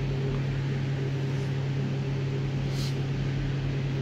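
Electric linear actuator motors of a MET LIFT UP medical bed running with a steady hum as the bed levels itself back to flat.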